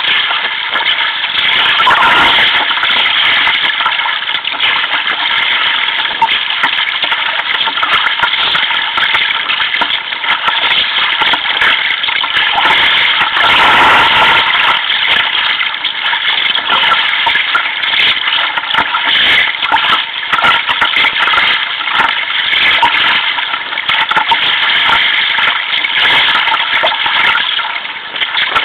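Sea water rushing and splashing against a sea kayak's hull and deck as it pitches through choppy waves, a loud continuous wash with louder surges about two seconds in and again near the middle.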